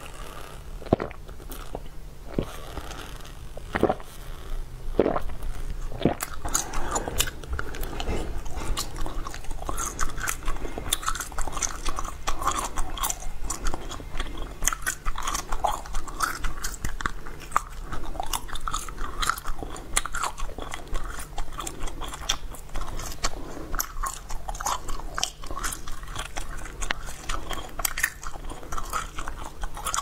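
A person eating close to the microphone: bites and chewing, a steady run of small crisp clicks and crunches that grows busier after the first few seconds.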